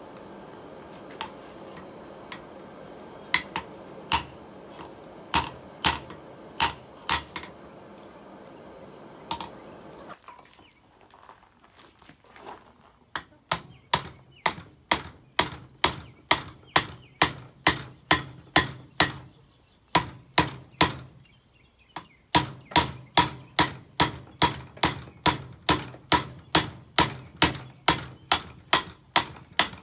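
Blacksmith's hand hammer striking red-hot square steel bar on an anvil, drawing it to a taper for an octopus tentacle. Scattered blows for the first ten seconds, then a steady run of ringing blows about two a second, broken by a short pause about two-thirds of the way through.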